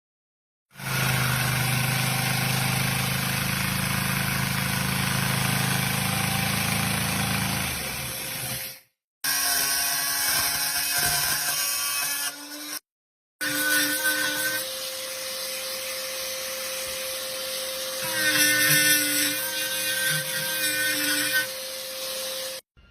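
Power tool running in several short stretches that start and stop abruptly, a steady motor whine through each.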